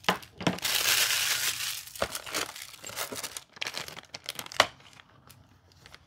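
Plastic packaging bag crinkling and rustling as hands pull it open and take out the packed microphone parts, with a denser stretch of rustling about a second in and scattered crackles after, dying down near the end.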